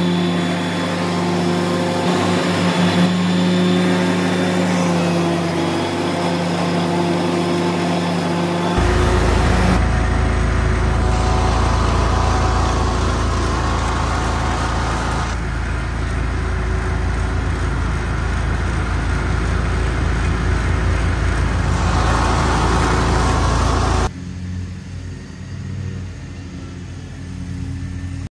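Scag zero-turn riding mower's engine running steadily while mowing, heard across several short clips joined by abrupt cuts. It is noticeably quieter in the last few seconds.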